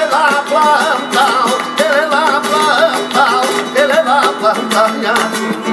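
Live flamenco: a man sings long, wavering lines over an acoustic flamenco guitar, with hand-clapping palmas keeping time throughout.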